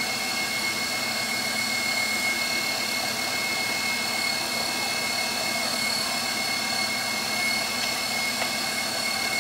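KitchenAid Professional HD stand mixer running steadily, driving the pasta press attachment as it extrudes spaghetti, with a steady high whine over the motor noise.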